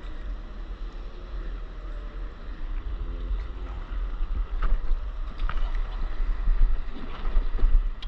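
Wind rumbling on an action camera's microphone out on the sea, with water sloshing around a stand-up paddleboard. A few sharper splashes come about halfway through, and it grows louder toward the end.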